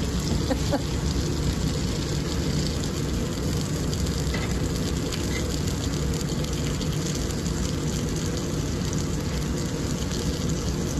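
Pork belly and collard greens sizzling on a hot cast iron griddle, a steady frying hiss over a constant low hum.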